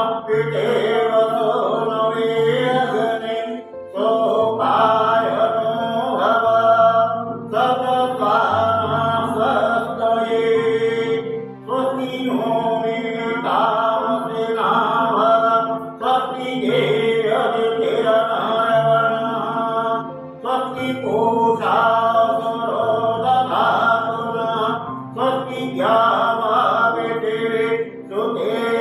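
Hindu devotional mantra chanting, sung in phrases about four seconds long over a steady instrumental accompaniment with a bass that steps between notes.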